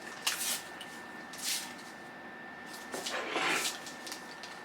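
Rustling and scraping from food and tableware being handled, in a few short bursts with the longest about three seconds in.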